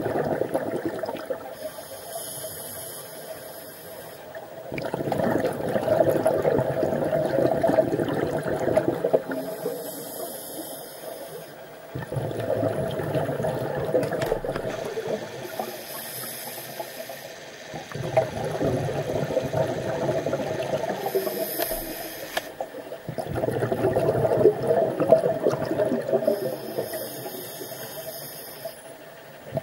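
Scuba diver breathing through a regulator underwater: several breaths, each a short high hiss on the inhale followed by a longer rush of exhaled bubbles, repeating about every five to six seconds.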